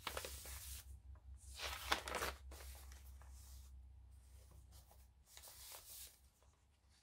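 Pages of a handmade junk journal being turned and handled: three soft paper rustles, one at the start, one about two seconds in and one about five and a half seconds in, over a faint steady low hum.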